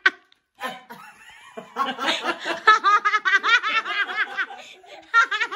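People laughing hard together: after a brief hush, a long run of quick repeated bursts of laughter starts about two seconds in, and another burst comes near the end.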